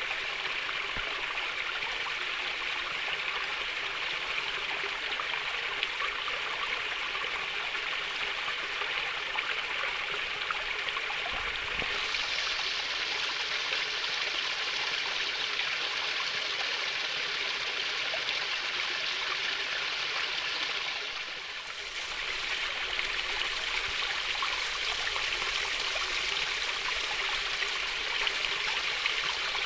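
Water flowing and babbling steadily in a small stream. The sound turns a little brighter about twelve seconds in, and dips briefly about twenty-one seconds in before carrying on as before.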